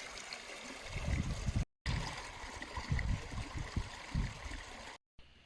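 Steady rushing water noise with irregular gusts of wind buffeting the microphone, broken by two brief dropouts.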